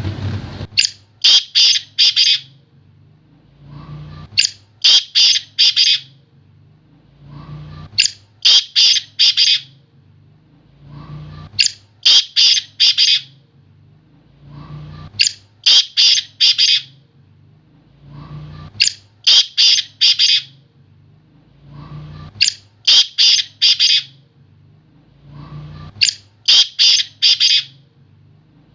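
Black francolin calling, the same grating phrase repeated about every three and a half seconds: a soft lead-in note, then three or four loud, harsh, high notes in quick succession. A faint steady low hum lies underneath.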